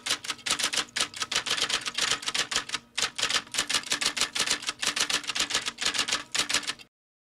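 Typewriter sound effect: keys clacking in quick succession, several strokes a second, with a short break about three seconds in. It stops abruptly shortly before the end.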